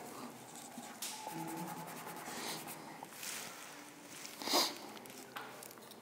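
Faint scratching of writing in a few short strokes, with one louder rush of noise about four and a half seconds in.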